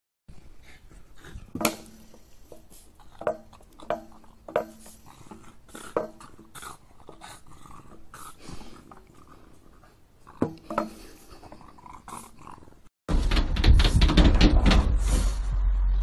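Dogs giving a string of short yelps, about seven spread over eleven seconds. About thirteen seconds in, a much louder, steady low noise starts suddenly and drowns everything else.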